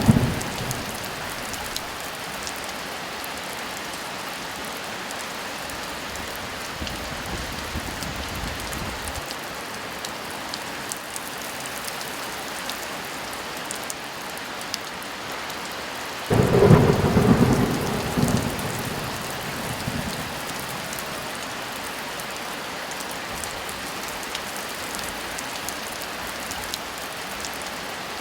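Steady heavy rain with thunder: a faint low rumble about seven seconds in, then a loud thunderclap about sixteen seconds in that rumbles away over a few seconds.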